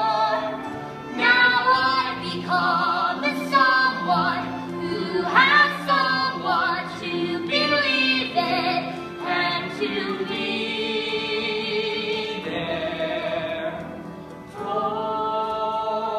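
Live musical-theatre singing over a backing accompaniment: a voice with vibrato moving through a sung phrase, then holding a long steady note near the end.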